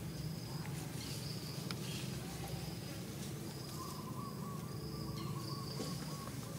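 Outdoor ambience: a steady low rumble under short, repeated high-pitched chirps, with a thin steady whistling tone in the second half. These are typical of insects or birds.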